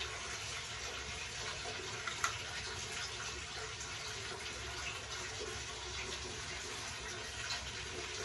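Water running steadily from a bathtub tap, filling the tub, with a short click about two seconds in.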